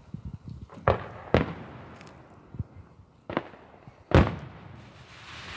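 Aerial fireworks shells bursting: several sharp bangs a second or two apart, each trailing off in a rumble, the loudest about four seconds in.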